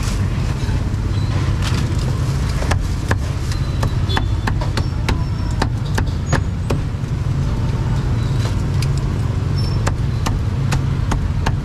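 Busy street ambience: a steady low rumble of motor traffic, with many short sharp clicks and knocks scattered through it.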